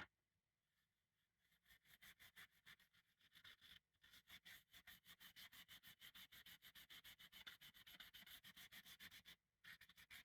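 Rapid back-and-forth scrubbing strokes by hand with an abrasive on a dovetail saw, about five or six strokes a second. The strokes pause briefly once and stop near the end, typical of rubbing rust off the saw.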